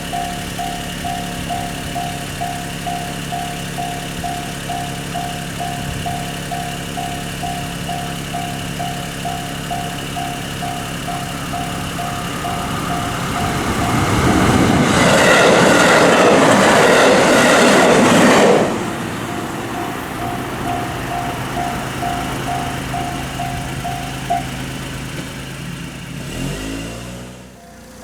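Japanese railroad crossing warning bell ringing its repeated 'kan-kan' at about two strokes a second, while the gates are down for a train. About halfway through, a train passes for roughly four seconds, louder than the bell. The bell carries on after the train and stops a few seconds before the end.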